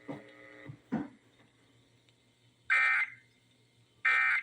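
Emergency Alert System end-of-message data bursts: short, loud, buzzy squawks of digital data from the station's EAS encoder, two of them about a second and a half apart, marking the end of the alert. In the first second there is a faint tone and a click.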